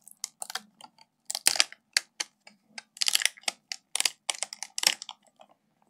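Irregular light clicks and taps of hard plastic and metal from hands working on an open laptop and its screen assembly, with a faint steady hum underneath.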